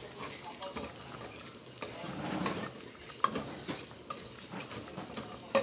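Metal spoon stirring and scraping raw rice as it sautés in an aluminium pot, with a steady sizzle under irregular scrapes and clinks. One sharp clink comes near the end.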